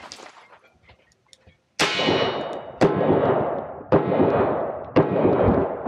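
Smith & Wesson 625 revolver fired in a steady string of five shots about a second apart, starting about two seconds in. Each shot is followed by a long ringing decay.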